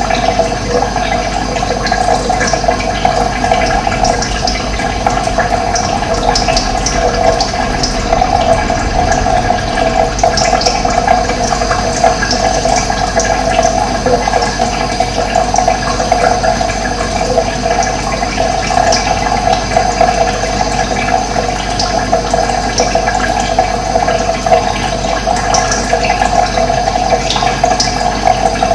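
Running water flowing steadily with a continuous gurgling rush, and brief high bird chirps scattered through it.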